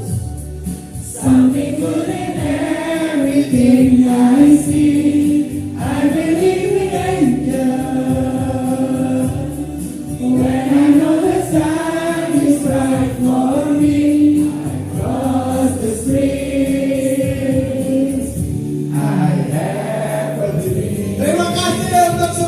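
A group of voices singing a song together in sustained phrases with short pauses between lines.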